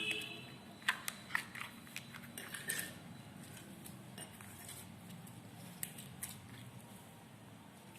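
Light clicks and short scrapes of utensils against containers, several close together in the first three seconds, then only a few sparse clicks.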